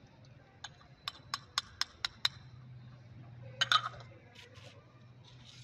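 A metal spoon clinking against a small bowl and glass jug, seven quick light clinks in under two seconds as soaked basil seeds are knocked off into the jug. A louder clatter follows about halfway through.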